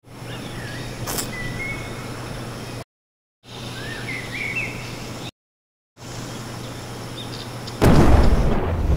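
Birds chirping over a steady low hum, cut off twice by brief dead silences. Near the end a sudden loud rushing noise takes over.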